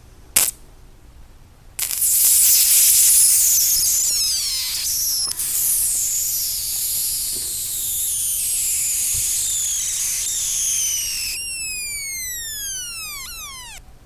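Electric arc between graphite electrodes, powered by three car batteries wired for 36 volts. There is one sharp snap about half a second in. About two seconds in, a loud hissing, crackling arc strikes and runs with a wavering whine, then breaks into several falling whistles and goes out near the end.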